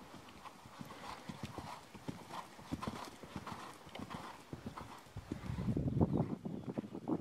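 Hoofbeats of a horse trotting on a sand arena: a steady run of soft thuds, with a louder low rumble joining in over the last couple of seconds.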